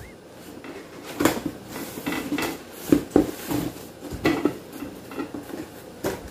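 Cardboard packaging of a boxed electric grill being opened and handled: flaps and a cardboard insert rustling and scraping, with scattered knocks and a couple of sharp clacks about three seconds in.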